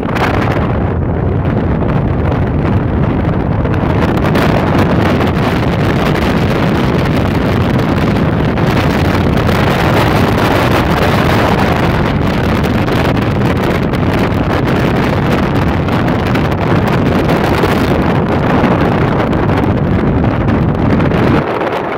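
Loud, steady wind buffeting the microphone while riding in the open bed of a moving pickup truck, with road and truck noise underneath. The low rumble drops off shortly before the end.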